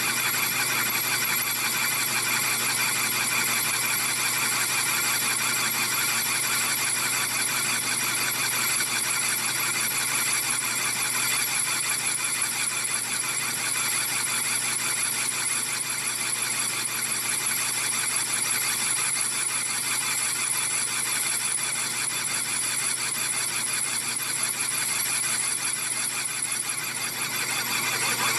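Metal lathe making a trepanning plunge cut in a steel plate with a round-insert boring tool, the cut giving a steady high-pitched squeal over the running lathe. It gets a little louder near the end.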